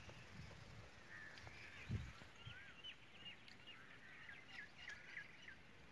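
Small birds chirping: a run of short, quick high chirps through the middle, over faint outdoor background. A soft low thump about two seconds in.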